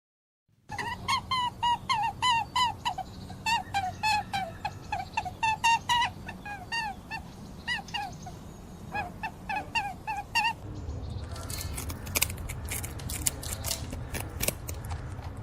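A rapid series of short, squeaky animal calls, several a second, stopping about ten seconds in; after that a steady rustling noise with scattered sharp clicks.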